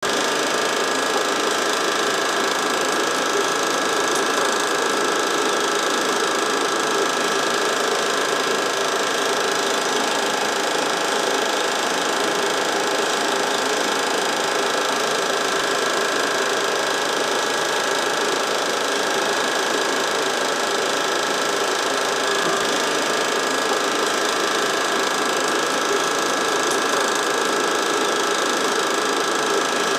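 Home-movie film projector running, a steady mechanical whirring and clatter that holds unchanged throughout.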